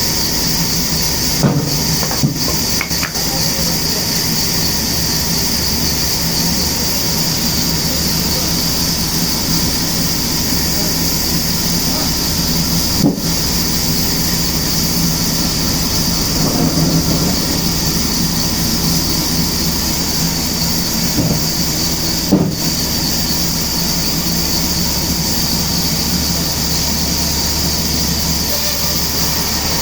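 Sawmill machinery running steadily with a loud, constant hiss and hum, broken by a few sharp knocks, the loudest about 13 and 22 seconds in.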